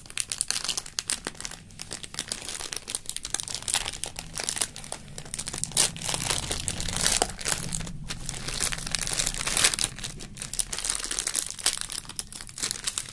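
Clear plastic tool packaging crinkling and crackling as hands work it and cut it open, a dense run of irregular crackles.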